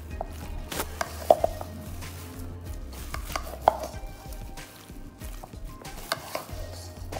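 A silicone spatula stirring marinated chicken strips in a ceramic bowl, with scattered knocks of the spatula against the bowl, the loudest a little over a second in; some knocks ring briefly.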